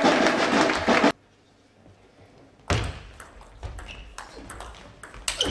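Crowd cheering and clapping in a sports hall, cut off abruptly about a second in. After a short silence, a table tennis rally: the ball clicking off rackets and table in quick exchanges, with the crowd starting up again near the end.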